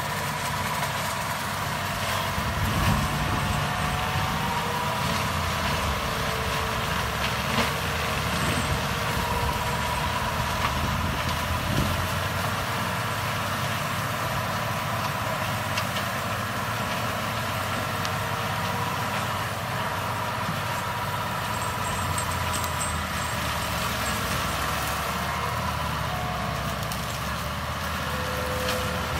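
Tractor engine running under load, driving a PTO-powered forestry mulcher through scrub: a steady machine drone with a high whine, broken by a few sharper knocks.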